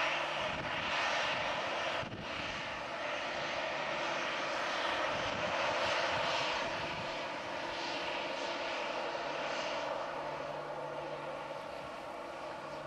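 Airbus A320-211's CFM56 turbofan engines running at taxi power as the airliner taxis: a steady jet whine over a rumble, dipping briefly about two seconds in.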